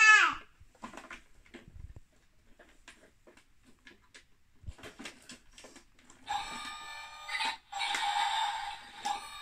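A baby's short squeal, then light clicks of small hands working a plastic toy garbage truck. About six seconds in the battery-powered toy truck starts its electronic sound effect, a loud chord of steady beeping tones that breaks off briefly and carries on.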